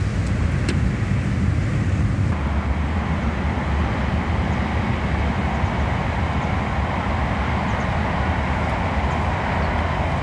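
Steady outdoor background rumble and hiss, with two faint clicks in the first second and the hiss growing a little fuller about two seconds in.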